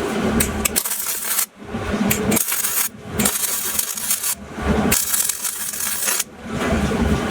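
Welding arc crackling on sheet steel in short runs of about half a second to a second and a half, with brief stops between them, as the transmission tunnel hump is welded into the floor.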